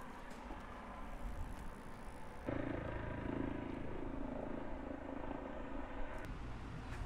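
Street ambience with a motor vehicle running nearby. The sound gets suddenly louder about two and a half seconds in.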